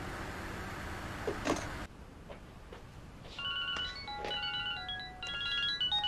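Steady low hum of a car's cabin for the first two seconds, cutting off abruptly. About three seconds in, a smartphone ringtone begins for an incoming call: a melody of quick stepped notes that keeps playing.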